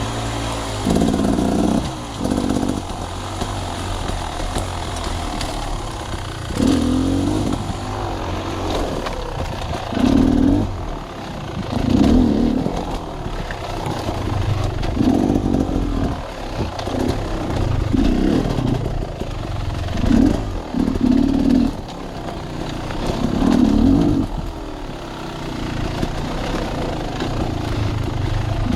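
Sawmill machinery running: a steady engine drone with louder surges, each about a second long, coming every two to three seconds.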